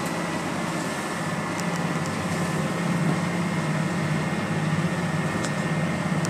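A boat's engine running steadily, heard from inside the enclosed wheelhouse as a constant low hum over a rushing noise. There are a couple of faint ticks.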